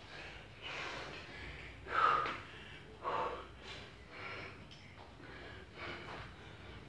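A person breathing hard, winded from jumping rope: heavy breaths about once a second, the loudest about two seconds in.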